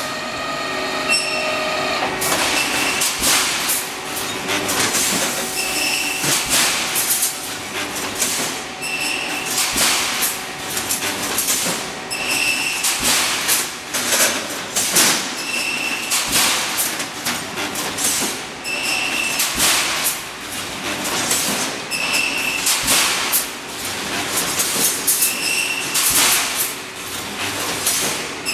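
Pneumatic wire mesh welding machine running, spot-welding ribbed steel bars into mesh: a continuous clatter of knocks and metal clanks from the welding strokes, with a short high tone about every three seconds.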